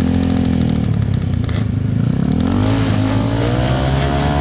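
Grass kart engines running on the start line, more than one at once, heard from a camera mounted on the kart. About halfway through, the pitch dips and then climbs steadily as the engines rev up.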